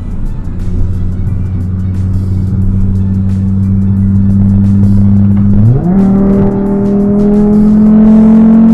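Volkswagen Mk6 Golf engine running at a steady drone, then the revs jump up sharply about six seconds in and keep climbing steadily as the car accelerates.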